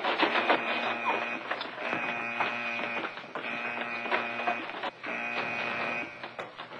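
Ship's alarm buzzer sounding in blasts of about a second, repeated roughly every second and a half: the call to scramble the helicopter crews. Quick clatters of running feet come near the start.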